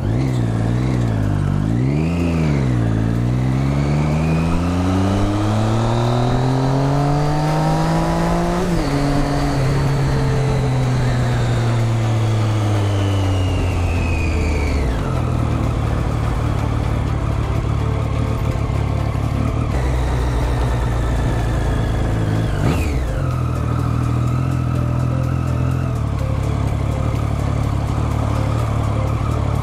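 Triumph Street Triple 675's inline three-cylinder engine revving up under acceleration, the pitch climbing for several seconds and dropping sharply about nine seconds in at a gear change. The revs then fall away as the bike slows, and the engine settles to a steady low note for the second half.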